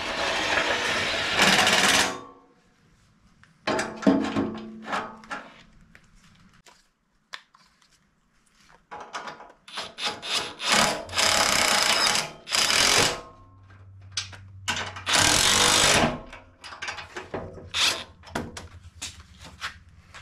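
Ridgid cordless impact driver hammering the bumper's mounting bolts in four bursts, the longest about four seconds, with short clicks and tool clatter between the runs.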